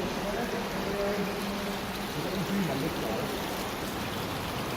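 River water flowing steadily through a culvert, a constant rushing noise.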